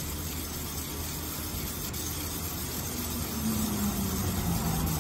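A carbide insert rubbed in a circular motion on a wet 1000-grit diamond sharpening plate: soft, steady scrubbing over a low hum. From about three seconds in, a low drone slides down in pitch and the sound grows a little louder.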